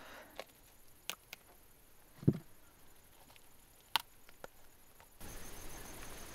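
Faint handling sounds of a leather welding glove grasping and twisting ripe prickly pears off a cactus: a few sharp small snaps and clicks and one dull thump about two seconds in. Near the end a steady background hiss with a faint pulsing insect trill comes in.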